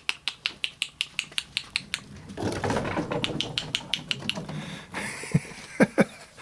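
Rapid, even clicking, about five clicks a second, used to call cats in a cat-training demonstration. A rustling scuffle joins it about two seconds in, and a few short, sharp squeaks come near the end.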